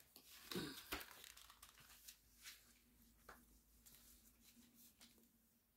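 Faint rustling and crinkling of paper being handled, with a few soft taps; a faint steady hum underneath from about two seconds in.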